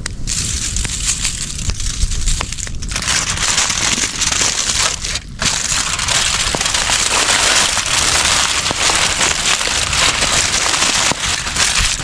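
Wood campfire burning, with a steady crackle and hiss and many small pops.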